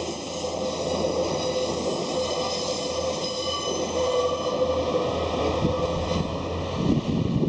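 Train rolling past with a steady rumble and high, wavering wheel squeal. The sound cuts off abruptly at the end.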